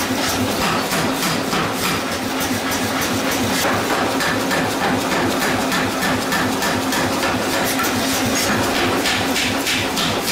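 Forging hammer pounding a red-hot steel block with rapid, evenly repeated blows, over a steady machine hum.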